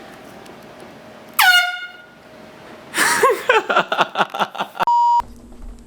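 A handheld air horn gives one short blast about a second and a half in, its pitch dropping as it starts. About a second and a half later comes a louder, rougher burst of several short pulses, ending in a short steady beep that cuts off abruptly.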